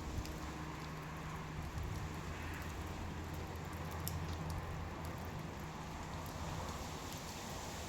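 Wood fire burning: a steady low rumble and hiss with occasional sharp crackles and pops.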